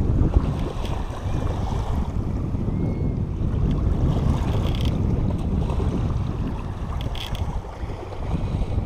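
Wind buffeting the microphone in a dense, uneven low rumble, with water washing in the background. Two brief, faint higher-pitched noises come through about five and seven seconds in.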